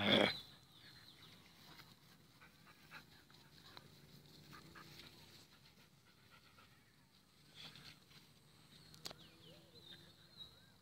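A dog panting, after one short, loud sound right at the start.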